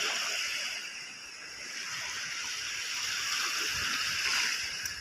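Shallow water splashing and sloshing steadily, with no single distinct splash.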